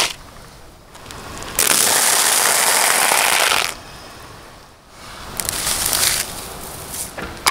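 A block of dry instant noodles crunching under a car tyre for about two seconds, starting and stopping abruptly. Near the end the broken noodles rustle briefly as a hand scrapes them together.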